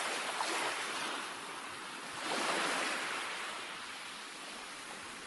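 Ocean surf washing onto a beach: a steady hiss, with one wave swelling about two seconds in and then slowly fading.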